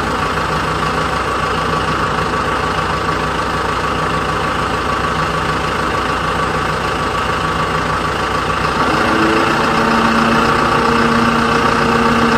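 Engine idling steadily, a dubbed-in sound effect rather than anything the hand-pulled toy makes; a few steady higher tones join in about nine seconds in.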